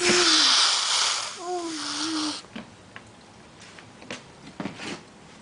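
A person's breath and voice close to the microphone: a loud, breathy rush with a short low hum at the start and a longer hum about a second and a half in. A few faint clicks follow.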